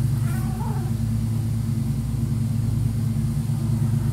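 Steady low machine hum, a motor or engine running without change, with a faint short pitched sound about half a second in.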